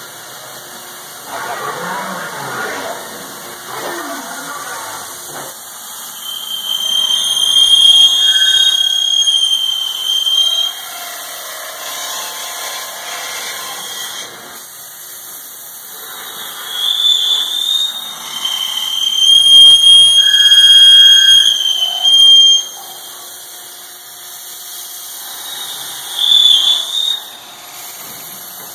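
Voortman V630-1250 CNC beam drill boring into a steel beam: a loud, high-pitched squeal from the drill cutting, in three spells lasting a few seconds each, the longest around the middle. Steady machine noise fills the gaps, with a rougher, lower noise in the first few seconds.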